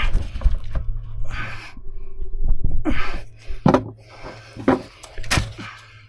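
Hands-on work at a seized skid-steer U-joint: a few sharp metal knocks and clicks, the loudest a little past five seconds in, between short hissing, breath-like bursts, over a steady low hum.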